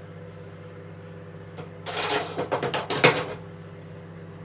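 Microwave oven running with a steady hum. About two seconds in, a second or so of rustling and knocking from plastic-wrapped food being handled, loudest about three seconds in.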